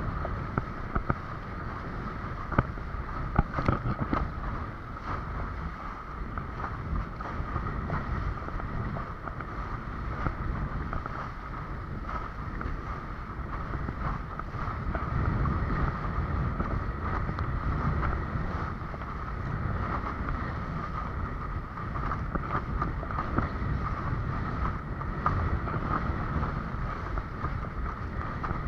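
Wind buffeting the microphone over water rushing and splashing past a windsurf board under sail, with a few sharp knocks in the first few seconds.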